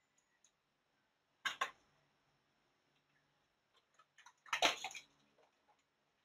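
Scallop half-shells clacking against each other and a plastic basket as they are handled, in two short bursts of clatter, about a second and a half in and near five seconds in, with a few light clicks in between.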